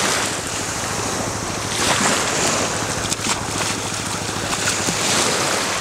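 Wind buffeting the microphone over gently lapping shallow sea water, with splashing from a swimmer diving in.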